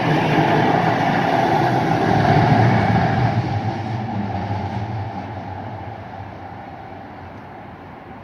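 Light rail train passing close by and pulling away, its running noise loud at first and then fading steadily over the last five seconds as it recedes down the track.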